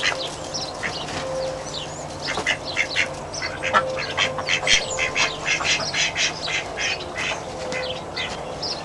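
Domestic ducks quacking, many short calls in quick succession.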